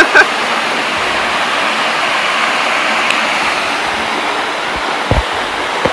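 Steady rushing of a waterfall pouring into a river pool, with a brief low thump about five seconds in.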